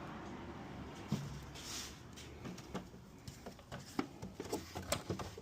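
Irregular plastic clicks and knocks as a new engine air filter is set into its plastic airbox and the housing is handled shut: one knock about a second in, then a run of small clicks.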